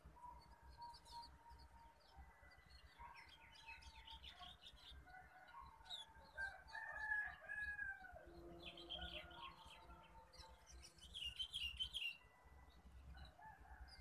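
Small songbirds chirping and twittering in a morning chorus, in bursts with busier spells about three and eleven seconds in. A rooster crows faintly once, about six to eight seconds in.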